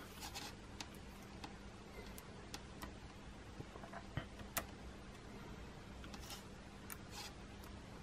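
Faint scattered clicks and short scrapes of metal multimeter probe tips touching and sliding on the screw terminals of a plastic connector block as it is handled, over a low steady hum.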